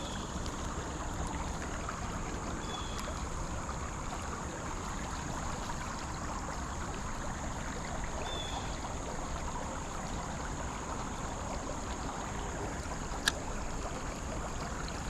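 Creek water flowing steadily over shallow riffles, with a steady high hiss above it. Two faint short chirps come in, and there is a single sharp click near the end.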